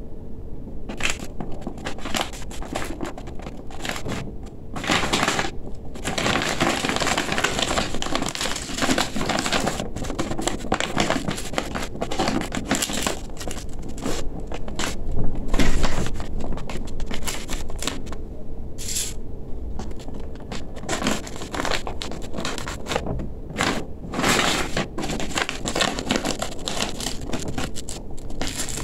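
Stiff, shiny gele head-tie fabric crinkling and rustling unevenly as hands fold and pleat it around a mannequin head, loudest about halfway through.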